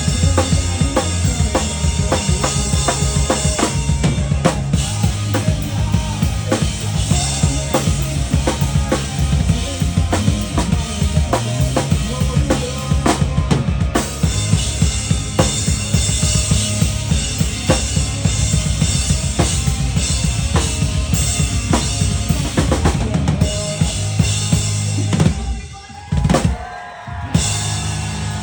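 Rock drum kit playing a busy beat of bass drum, snare and rimshot hits with the band's bass and guitars underneath. Near the end the band stops for about two seconds, with a single hit in the gap, then comes back in.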